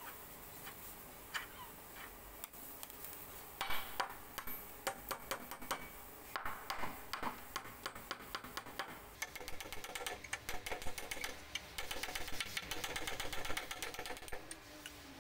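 Irregular taps, knocks and scraping of a hatchet blade worked against a rusted bolt on an old wooden bench's metal frame, turning about nine seconds in into a dense run of rapid clicking and creaking as the weathered backrest slat is worked loose on its rusty screws.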